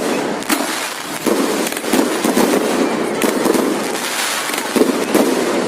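Fireworks going off in quick succession: many sharp cracks and bangs over a dense, continuous crackle.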